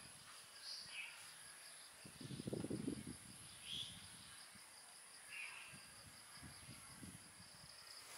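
Insects trilling steadily with a high, evenly pulsing buzz, with a few short bird chirps. A soft rustle of handling, about two to three seconds in, is the loudest sound.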